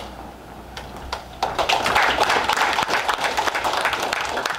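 Audience applauding, breaking out suddenly about a second and a half in.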